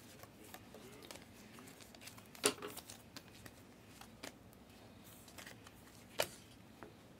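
A stack of trading cards being flipped through by hand: faint sliding with a few sharp card clicks, the loudest about two and a half seconds in and others near four and six seconds.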